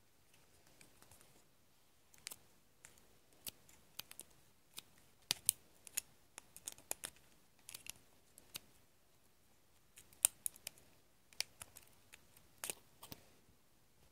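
Scissors cutting a plastic drinking straw: a run of short, sharp, irregular snips and clicks that starts about two seconds in and stops near the end.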